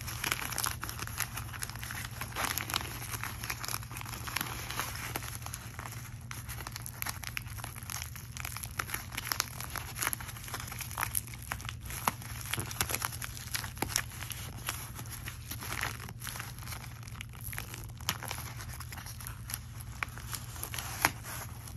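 Kraft paper envelope crinkling and tearing as it is worked open with one hand: many small irregular crackles and rips.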